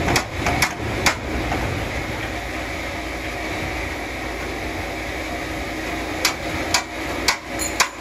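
Sharp knocks like hammer blows over a steady machine hum: a few in the first second, then four in quick succession, about half a second apart, near the end.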